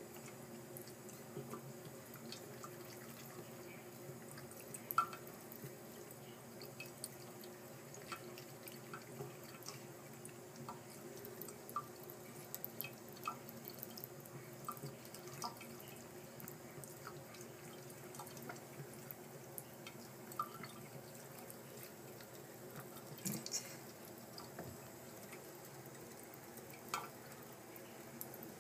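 Faint, irregular drips of water into a bathroom sink from the faucet, over a steady low hum.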